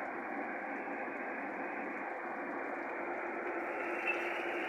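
Ground chili and shallot spice paste sizzling steadily in hot oil in a wok, being fried until fragrant, with a faint steady low hum underneath.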